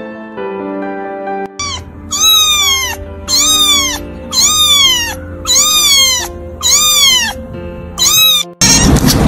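Domestic kitten meowing repeatedly: about seven high-pitched meows, roughly one a second, each dropping in pitch at the end, over soft piano music. Near the end a loud steady rushing noise cuts in.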